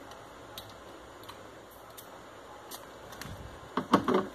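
Faint clicks from handling a glass perfume bottle and its cardboard box, then a few knocks near the end as the bottle is set down on a shelf.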